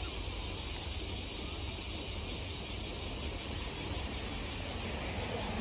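Steady outdoor background noise: a low rumble underneath, with insects buzzing high and steady.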